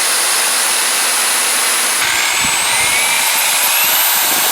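Electric drill running with a 1/8 inch bit, boring a pilot hole into a wooden furniture leg. The motor whine is steady, then dips about halfway through and climbs steadily in pitch.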